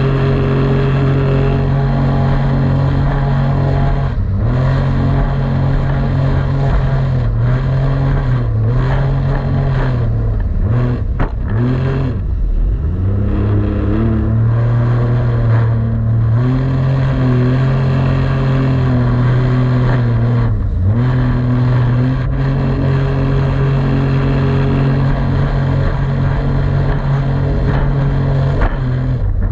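Jet ski engine running at speed, holding a steady pitch for long stretches and dipping briefly several times as the throttle eases off, then picking back up.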